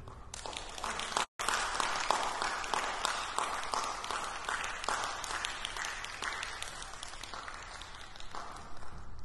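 Audience applause, a dense steady clapping that starts just after the orchestra's final note dies away. It has a brief dropout just over a second in.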